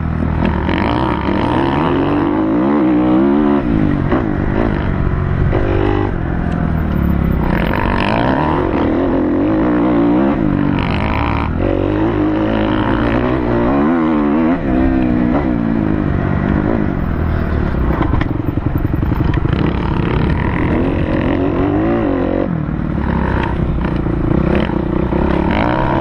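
Kawasaki KX250F motocross bike's single-cylinder four-stroke engine running hard under the rider, its pitch climbing and dropping again and again as the throttle is opened and closed along the dirt track.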